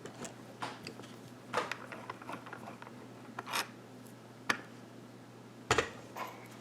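Irregular light clicks and scrapes of small metal parts, about eight of them, as a picked pin-tumbler lock is taken apart.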